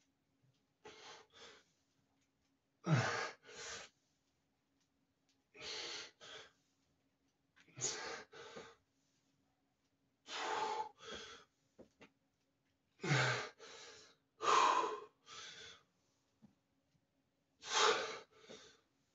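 A man breathing hard through a set of barbell back squats: sharp breaths in pairs, one pair about every two to three seconds, in time with the reps.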